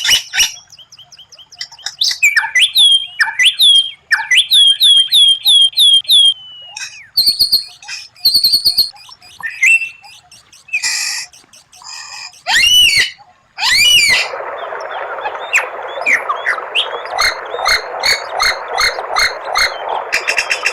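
White-rumped shama (murai batu) singing a varied song of whistled phrases, fast repeated notes and steep sweeping 'shot' notes. About two-thirds of the way in, a steady hiss comes in under a run of quick sharp notes.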